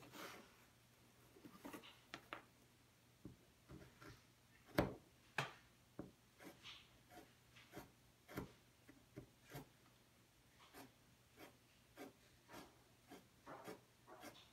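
A restored CS Osborne round knife cutting through 9-ounce leather in a string of short, faint, crisp cuts at irregular intervals, roughly one or two a second, as small pieces are sliced off a strip. The loudest cut comes about five seconds in.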